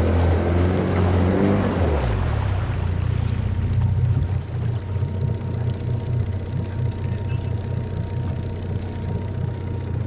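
Motorboat engine running under way. It drops in pitch about two seconds in as it throttles back, then runs on at a lower, steady speed with rushing wind and water noise.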